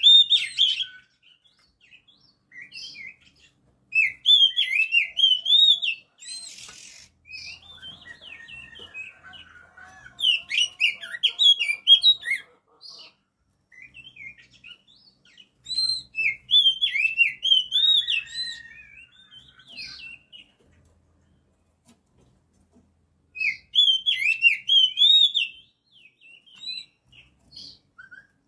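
Oriental magpie-robin singing: loud phrases of varied, quickly sweeping whistles about every six seconds, with softer chirps and twitters between them.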